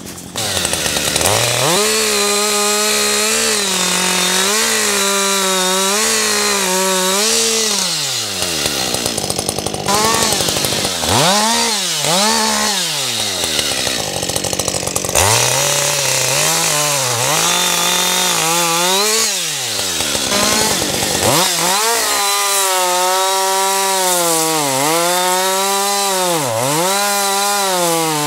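Two-stroke chainsaw cutting through a fallen spruce trunk. The engine runs at high revs, its pitch dipping again and again as the chain bogs in the wood. Several times it falls back toward idle, then revs up again.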